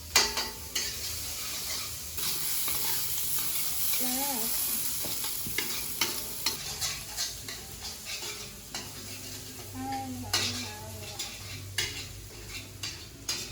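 Food frying in a pan with a steady sizzle, loudest in the first half, while a spatula stirs and scrapes through it with repeated short clicking strokes against the pan.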